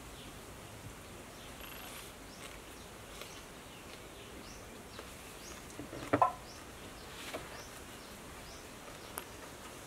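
Quiet outdoor rural ambience with faint short high chirps repeating every second or so, and one brief louder sound about six seconds in.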